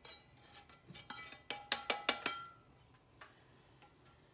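Kitchenware clinking: a few faint clicks, then a quick run of five or six sharp taps with a short ring about one and a half to two seconds in, as topping is shaken out of a container over a glass baking dish.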